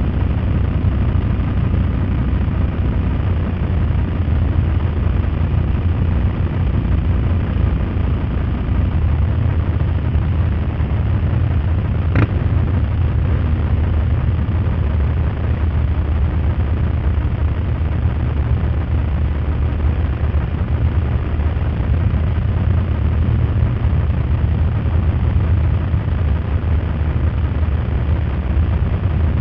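Steady low rumble of a group of motorcycles riding, mixed with wind noise on the microphone. A single sharp click about twelve seconds in.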